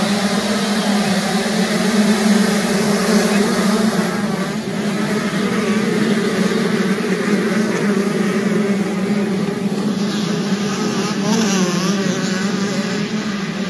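Motocross motorcycle engines running at high revs, a steady buzzing drone whose pitch wavers more from about ten seconds in.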